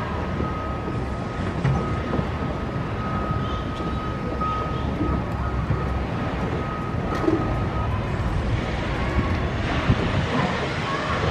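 Caterpillar 335F hydraulic excavator's diesel engine and hydraulics running steadily, with a thin steady whine that stops about eight seconds in.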